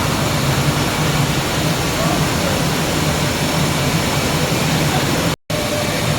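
Steady machinery noise of a PS plastic sheet extrusion line running: a constant low hum under an even hiss. The sound cuts out for a split second about five seconds in.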